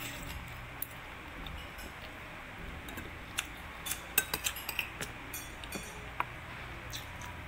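Spoon and fork clinking and scraping against a plate, a run of sharp clinks bunched about three and a half to five seconds in and one more near six seconds.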